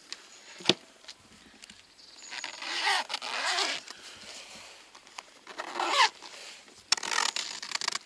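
The self-sealing zip around the top of a backpack fridge's fabric lid is pulled shut in three scratchy pulls, after a single sharp click about a second in.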